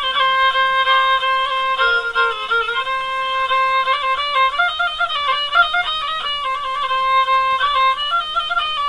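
Instrumental background music: a quick, ornamented melody over a steady held note.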